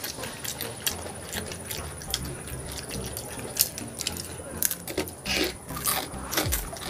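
Children eating pizza: close mouth sounds of chewing and lip-smacking, many small irregular clicks and smacks with a few short breaths.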